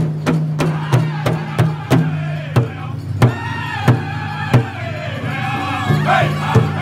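Powwow drum group singing at a large shared drum. Several drummers strike it together in a steady beat, with loud, high-pitched men's singing over it, clearest from about three seconds in.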